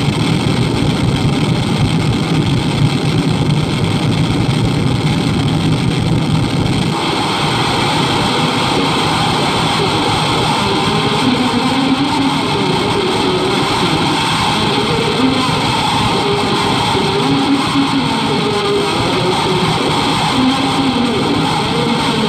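Harsh noise wall: a dense, unbroken wall of distorted noise coming out of a Laney guitar amplifier and speaker cabinet. About seven seconds in, the low rumble drops away and a brighter hiss takes over, with wavering tones underneath.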